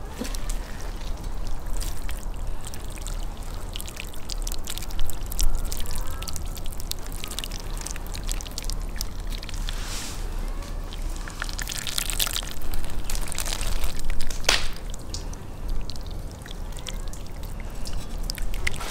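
Water pouring from an enamel kettle onto a whole sturgeon, splashing and trickling over the fish's skin onto the wooden board beneath.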